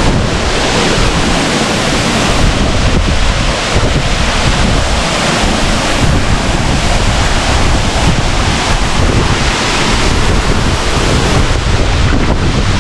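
Loud, steady rush of a waterfall close by, with wind buffeting the microphone.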